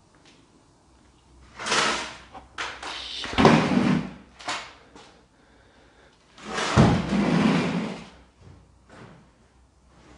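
A wooden door being pushed and swung open, with several scraping, knocking sounds. The two loudest come on suddenly about three seconds apart.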